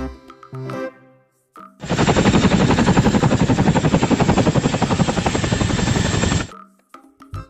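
Toy military helicopter's electronic machine-gun sound effect: a loud rapid rattle of shots lasting about four and a half seconds, after a brief snatch of jingly music.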